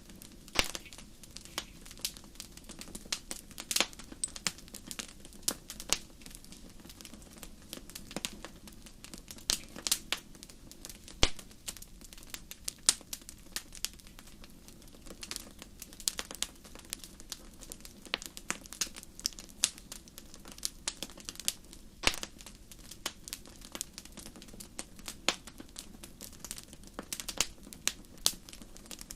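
Wood fire crackling in a fireplace: irregular sharp pops and snaps over a low steady hiss of burning.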